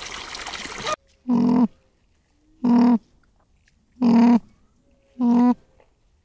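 An animal calling four times at an even pace, about once every 1.3 seconds, each call a short steady-pitched cry with bright overtones. The calls begin about a second in, after a sudden cut from a noisy stretch of sound.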